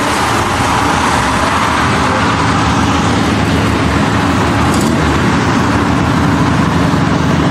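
Minibus engine running steadily with road and traffic noise around it.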